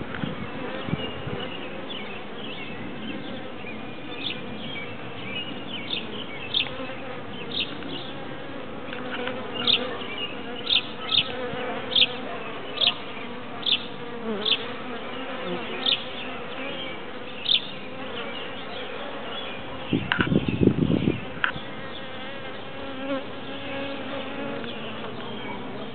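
A swarm of honeybees clustered on a tree branch, buzzing steadily at close range. Through the middle come short high chirps about once a second, and about twenty seconds in there is a brief louder low buzz.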